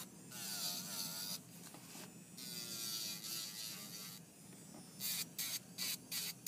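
Electric nail drill (e-file) running with a steady hum, its bit grinding down an acrylic nail in long passes, then in short quick strokes near the end.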